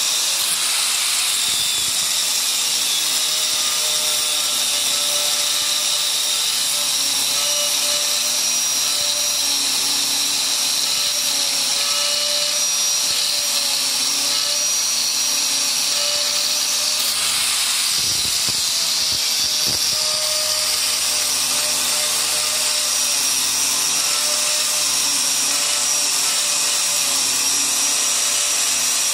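Electric angle grinder running under load, its abrasive cutting disc grinding through a metal rod held in a vise: a steady, high-pitched whine over a harsh grinding hiss that continues throughout.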